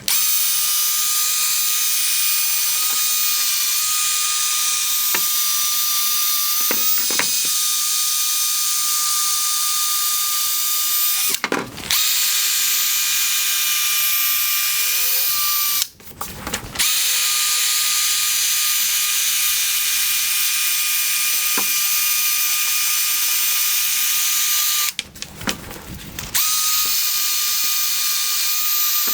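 Drill spinning a 3M P800 sanding disc against a plastic headlight lens: a steady high-pitched motor whine with a sanding hiss, stopping briefly three times.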